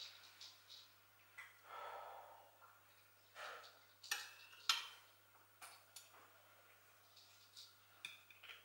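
Faint scrapes and clinks of a metal serving utensil against a ceramic baking dish and plate as roasted potatoes are served out, with two sharper clinks a little past the middle.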